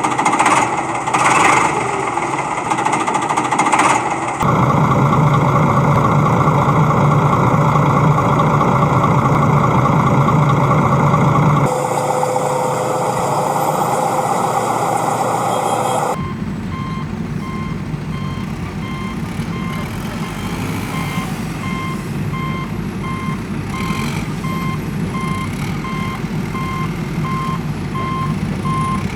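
Construction vehicle sounds in abruptly cut segments. There is repeated knocking at first, then a loud running engine. From about halfway on, a reversing alarm beeps at a steady rate over the engine.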